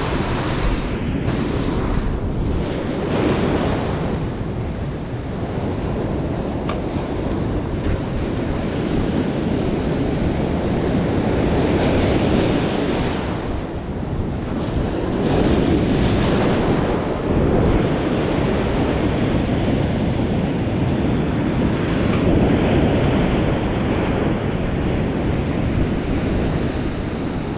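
Ocean surf breaking and washing up the shore, swelling louder and softer every few seconds, with wind buffeting the microphone.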